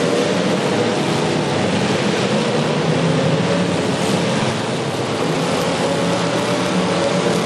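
Demolition derby cars' engines running and revving together, a loud, steady mechanical din with slowly shifting engine pitches.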